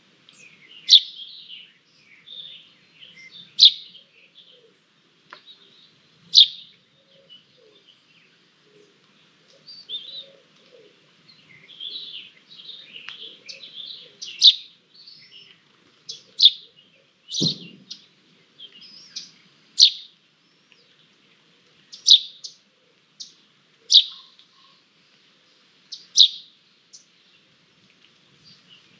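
High-pitched bird calls: short, sharp notes repeated about every two seconds, with softer twittering between them. A single dull knock about two-thirds of the way through.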